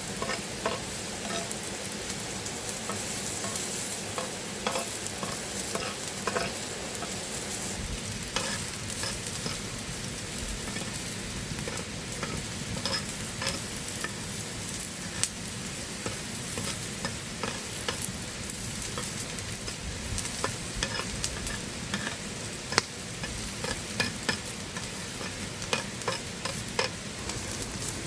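Food frying with a steady sizzle on a hot flat stone over a campfire, with scattered sharp pops and crackles.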